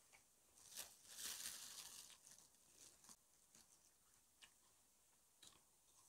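Faint rustle of food packaging being opened, about a second in, followed by a few faint clicks of chewing.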